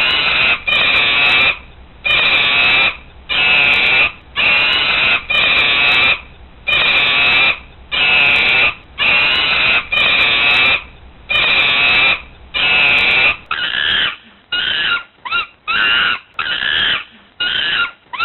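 A monkey giving a long series of loud, high calls, each about half a second to a second long, with short gaps between them. About thirteen seconds in, the calls turn shorter and quicker, with a pitch that bends up and down.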